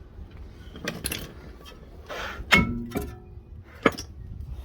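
Metal clanks and clicks from brake work on a Mini's front brake: a few knocks, a short scrape, then a loud clang about halfway through that rings on briefly, and a sharp click near the end.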